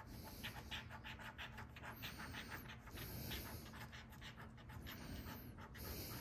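A coin scraping the scratch-off coating off a paper lottery ticket in quick, repeated strokes.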